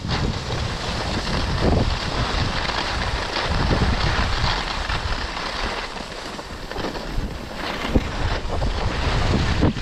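Wind buffeting the microphone of a camera worn by a skier going downhill, over the hiss and scrape of skis on groomed packed snow, swelling with the turns.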